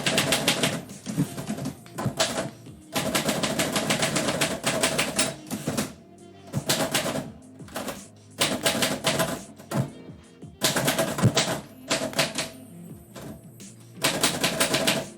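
Typewriter being typed on in quick runs of keystrikes, each run a second or two long with short pauses between, over faint background music.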